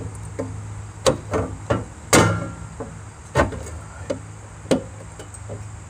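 Cut sheet-metal floor pan of a 1991 Pontiac Firebird being pried and bent up with snips or pliers: a series of irregular metal knocks and clanks, the loudest about two seconds in with a short ring.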